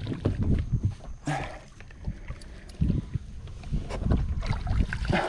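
Wind buffeting the microphone as an uneven low rumble, with scattered knocks and handling noise.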